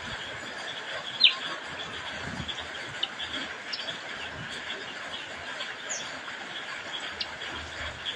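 A songbird gives scattered short chirps, with one loud downward-sliding call about a second in, over a steady background hiss.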